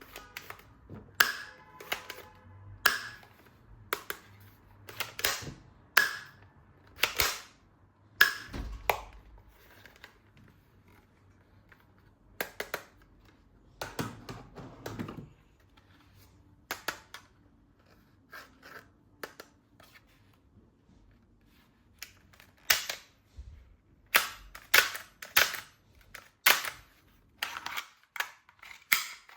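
Sharp plastic clicks and snaps from a toy gun being handled and worked, coming in irregular runs. A short scraping rattle comes in the middle, then a pause of a few seconds before a quicker run of clicks near the end.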